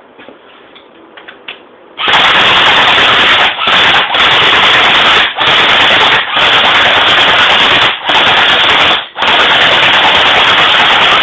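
Full-auto M4 airsoft electric gun firing BBs in long automatic bursts. It starts about two seconds in and is very loud, broken by about six short pauses where the trigger is let off.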